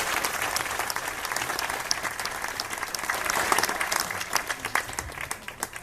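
Audience applause, a dense patter of many hands clapping that thins out and fades toward the end.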